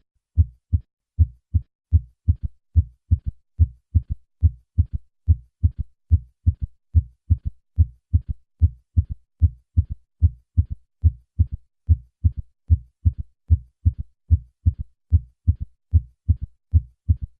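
Heart sounds as heard at the chest, a steady run of short low thuds about two and a half a second. Each beat is a first and second heart sound followed in early diastole by an added third heart sound (S3, a ventricular gallop).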